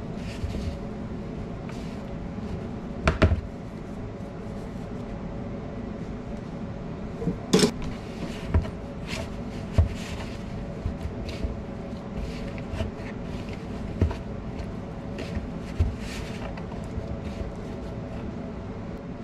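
Hands mixing and squeezing shaggy bread dough in a plastic bowl, with scattered knocks and taps of the bowl against the counter, the sharpest about three seconds in and halfway through, over a steady kitchen hum.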